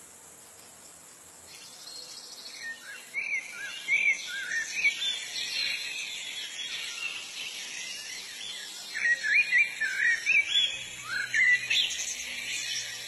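Small birds chirping in quick, short rising-and-falling notes, in clusters that come and go, over a steady high hiss of insects that starts about a second and a half in.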